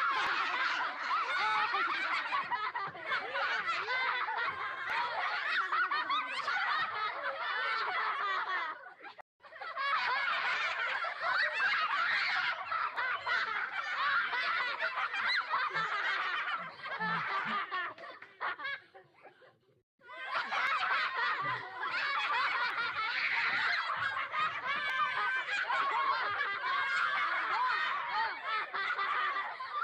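A crowd of many people laughing together, in three separate takes. A short break falls about nine seconds in, and another just before twenty seconds. The second take thins out before it stops.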